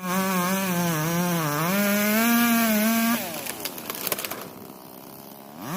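Chainsaw engine running at high revs, its pitch dipping and rising under load as it cuts. About three seconds in the revs fall away, a few sharp cracks follow, and the saw revs up again at the end.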